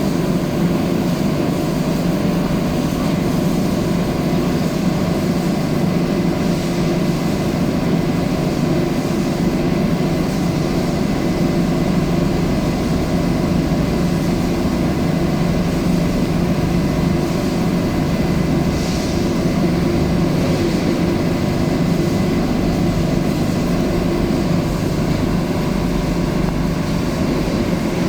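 A steady mechanical drone with a constant hum, even in level.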